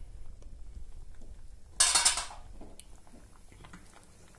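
Chicken and vegetable soup boiling in an aluminium pan, with a low bed of bubbling and popping. About two seconds in there is a brief loud clatter of metal kitchenware.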